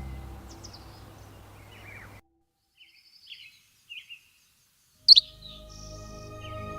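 Ambient music fading out, then a short near-silent gap with a few faint bird chirps. About five seconds in a sharp, loud bird call breaks in, and new ambient music starts with bird calls over it.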